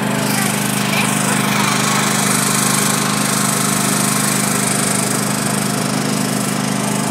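Small engine of a riding lawn mower running at a steady speed as it drives along.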